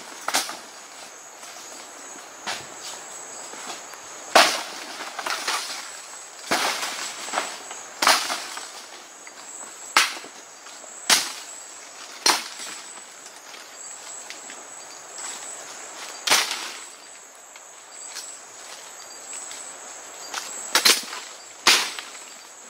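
Machete chopping through jungle undergrowth: about ten sharp cuts at uneven intervals, some followed by a brief rustle of leaves and stems. A steady high-pitched hum runs underneath.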